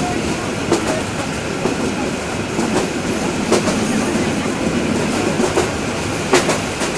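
Passenger train running, heard from inside the carriage: a steady rumble of wheels on rails with irregular sharp clacks as the wheels pass over rail joints, the loudest one near the end.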